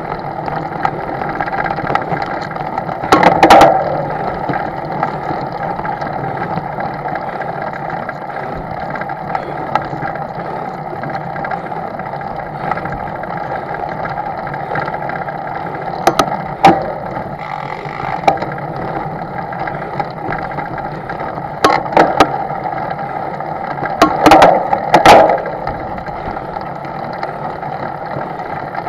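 Steady engine drone, with a few loud knocks a few seconds in and a cluster of them in the second half.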